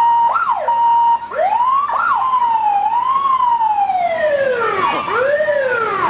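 Fire engine sirens sounding as they pass. A quick up-and-down sweep and a steady tone come in the first second, then a slow wail rises and falls over several seconds, with other sirens sweeping over it near the end.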